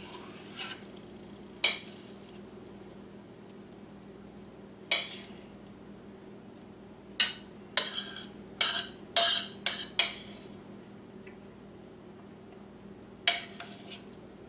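A utensil scraping and clinking against a frying pan as the pepper cream sauce is poured and scraped out over the chicken: a few single strokes, a quick run of scrapes about seven to ten seconds in, and another near the end, over a steady low hum.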